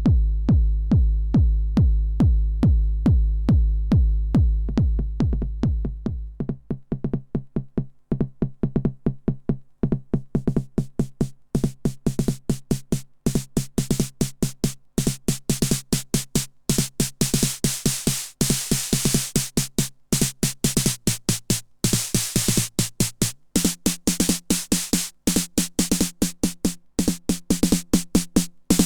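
TR-909 clone drum machine playing a simple four-on-the-floor beat. A deep bass drum hits about twice a second, then drops out about six seconds in, leaving higher-pitched drum hits. Hi-hats and cymbals come in around ten seconds in and fill out the pattern.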